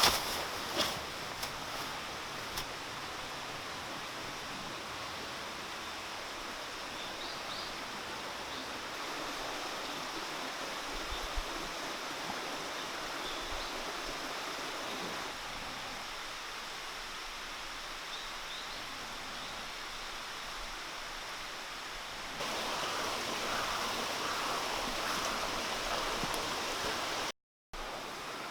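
Mountain stream water flowing steadily as a continuous rushing noise, getting louder after a cut about 22 seconds in and dropping out for a moment near the end.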